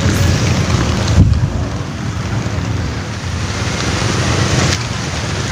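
Rain falling on a lake surface, an even hiss, with wind buffeting the microphone in a low rumble.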